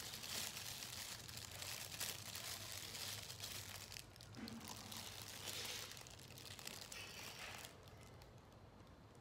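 Clear plastic bread bag rustling and crinkling as a bun is handled and eaten, quieter near the end.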